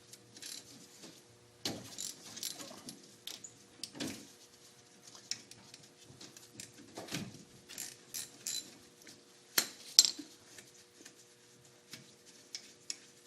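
Hand tools clinking and knocking on the metal of a rear disc brake caliper as its 12 mm caliper bolts are loosened: scattered light metallic clinks and taps, with a few sharper knocks.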